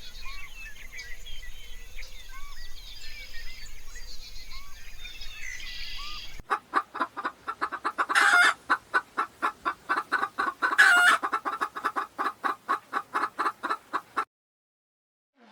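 Chickens: first a mix of small chirps and soft repeated calls from a flock. After a cut about six seconds in, a hen clucks rapidly, about four clucks a second, with two louder squawks among them.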